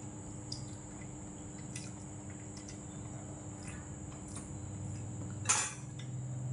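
Spoon and chopsticks clicking lightly against a stainless steel rice bowl, with one sharper metal clink about five and a half seconds in.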